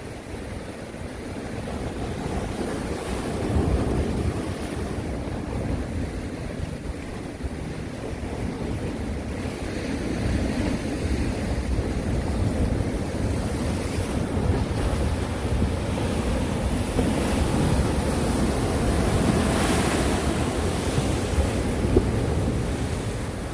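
Sea waves washing onto the shore in repeated swells, the fullest surge coming near the end, with a low rumble of wind buffeting the microphone.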